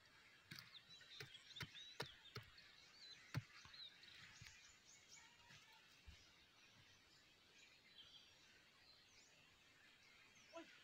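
Faint birds chirping over a quiet field, with about six soft knocks in the first three and a half seconds from a knife blade chopping into the soil to dig holes for replanting corn.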